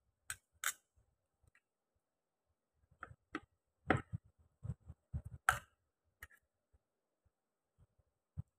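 Irregular clicks and taps of food-prep handling: a plastic sheet crinkling under the hand, then a metal utensil clinking and scraping as filling is scooped onto spring-roll wrappers. The clicks cluster in the middle of the stretch.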